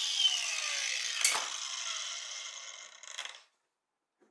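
A power tool winding down after being switched off, its pitch falling as it slows, with a sharp knock about a second in; it fades out by about three seconds in.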